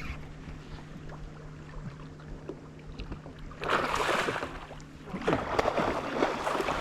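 Hooked barramundi thrashing and splashing at the surface beside the boat near the landing net, in two bursts of splashing about three and a half and five seconds in, over a steady low hum.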